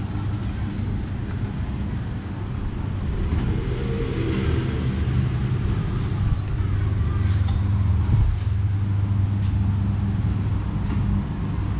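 A motor vehicle engine running with a steady low hum, amid general street traffic noise.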